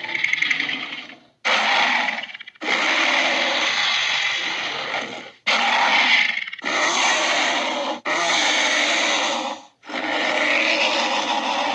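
A string of about seven harsh, raspy dinosaur roar sound effects for an Albertosaurus, each lasting one to three seconds, with short gaps between them.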